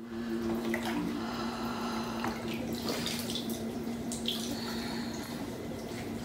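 Water moving and dripping in an inflatable birth pool, under a steady low hum.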